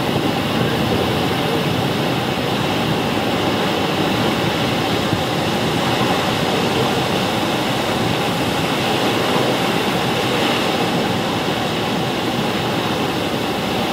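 Steady rushing of the Moconá Falls cascading along the river and the churning whitewater below them.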